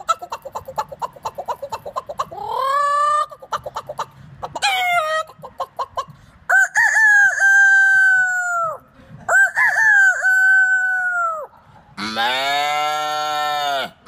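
A man imitating a chicken with his voice: a fast run of clucks broken by two short rising squawks, then two long, held rooster crows. A lower call follows near the end.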